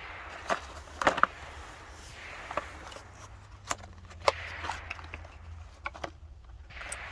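Light sharp clicks and taps from handling an AR-15 and its ammunition while switching to 50-grain rounds, about eight of them over several seconds. No rifle shot is fired.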